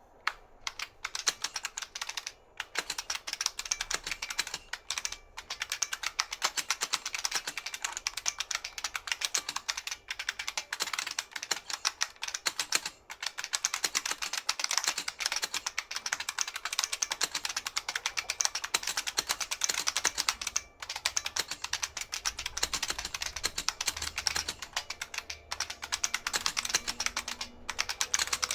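Continuous fast typing on a New Model F F77 mechanical keyboard, its buckling-spring switches clicking and pinging with each keystroke, with a few short pauses between runs.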